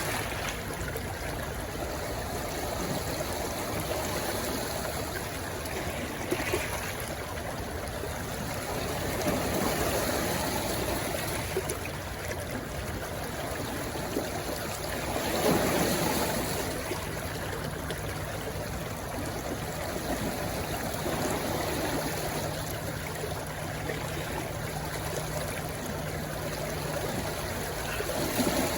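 A stream rushing and gurgling steadily over its bed where it flows into the sea, swelling louder briefly a couple of times.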